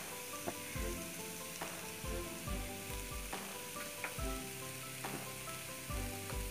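Chopped onions and Kashmiri chilli powder sizzling softly in oil in a nonstick frying pan over a lowered flame, stirred with a wooden spatula that clicks and scrapes on the pan. Soft background music with held notes plays underneath.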